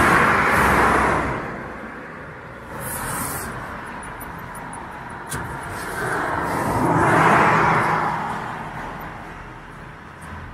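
Road traffic: one car passing fades away at the start, and another swells past about seven seconds in. A small click comes about five seconds in.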